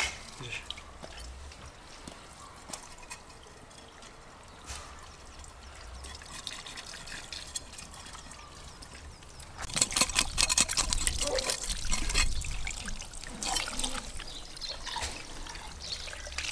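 Water running from a garden hose onto a whole fish being rinsed over a plastic crate: a steady trickle and splash that grows louder and more splashy about ten seconds in.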